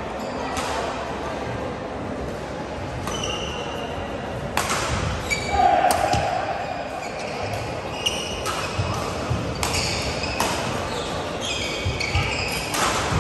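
Badminton rally: several sharp racket strikes on the shuttlecock, mixed with short high squeaks of shoes on the court mat.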